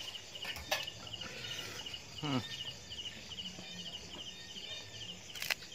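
Crickets chirping steadily in short, evenly repeated high chirps, with a couple of sharp clicks and a brief falling vocal sound about two seconds in.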